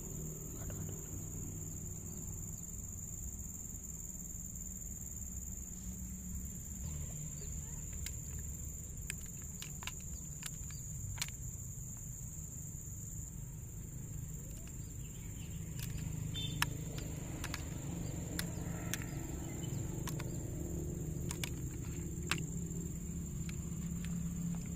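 Steady high-pitched insect drone, with a low rumble underneath. From about eight seconds in come scattered sharp clicks and crackles of a plastic drink bottle being handled.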